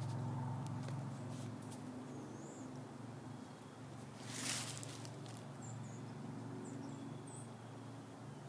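Outdoor ambience among trees: a steady low hum under a few short, thin, high chirps in the second half, with a brief rustling swish about halfway through.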